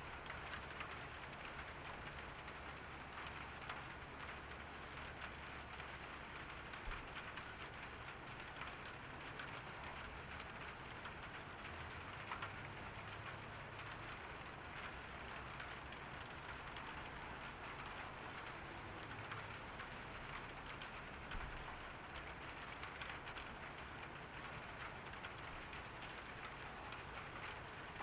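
Steady summer rain falling on a garden, an even hiss dotted with the ticks of single drops, over a faint low hum.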